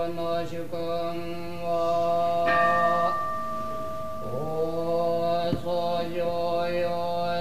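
A large body of Sōtō Zen monks chanting a sutra in unison on a steady monotone. About two and a half seconds in, a bell is struck and rings on for about a second while the voices briefly thin, then the chanting picks up again.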